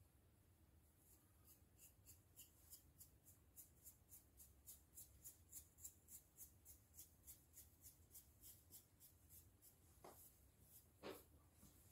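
Faint, quick, rhythmic scratching of fingernails through short hair on a dry, itchy, flaking scalp, about five strokes a second, giving way to a few slower, longer strokes near the end.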